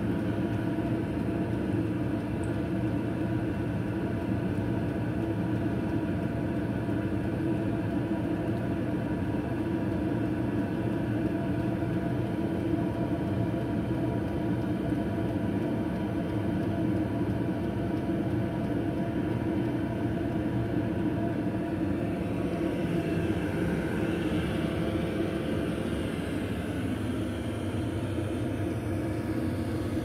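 2 kW Chinese diesel air heater running with a steady, even hum.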